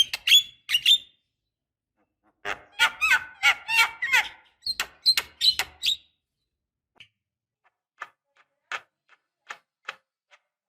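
Javan myna calling in runs of short, harsh, chattering notes. A quick run is followed by a pause of about a second and a half, then a dense burst of calls, then sparser, fainter notes in the second half.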